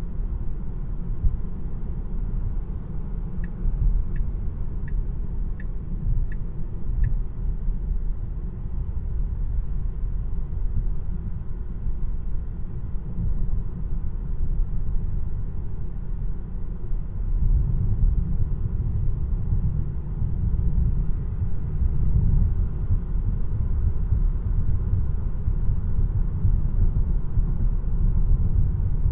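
Low road and tyre rumble inside the cabin of a moving Tesla Model 3, an electric car with no engine note, growing louder a little past halfway through. Six short, evenly spaced ticks sound a few seconds in.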